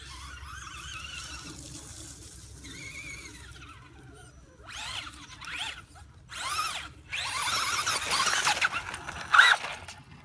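Radio-controlled car's motor whining as it is throttled up and down, the pitch rising and falling. It comes in several short runs from about halfway through, growing louder, with the loudest rev near the end.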